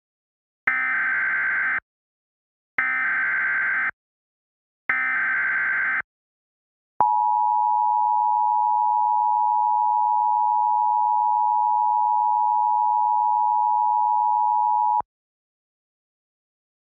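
Emergency Alert System alert tones. First come three one-second bursts of the SAME digital header data screech, then the two-tone EAS attention signal (853 and 960 Hz together), held steady for about eight seconds before cutting off sharply. These tones announce a new alert message.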